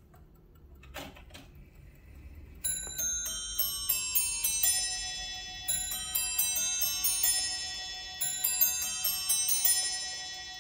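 Ebonised bracket clock's chime: a couple of mechanical clicks about a second in, then a quick run of bell notes, several a second, that overlap and ring on, fading near the end.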